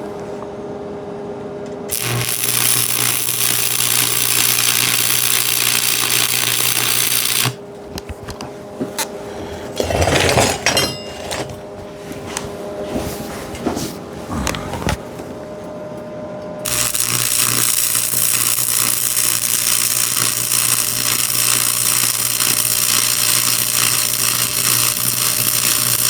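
Electric arc welding in two runs: a steady hiss over a low electrical hum. The first run lasts about five seconds and the second about nine seconds, running on to near the end. Between them come a few seconds of metal clattering and knocking.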